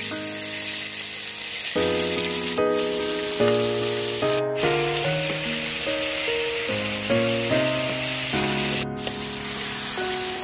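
Sliced onions, green capsicum and tomatoes sizzling in hot oil in a frying pan as they are stir-fried, a steady hiss, with background music playing over it.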